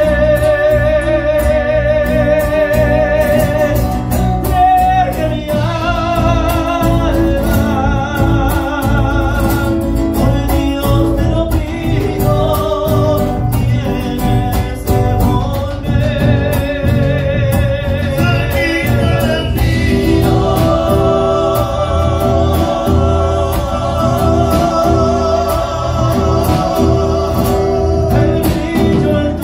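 Live band: male voices singing long, wavering held notes over strummed acoustic guitars, bass and drums, amplified through a PA.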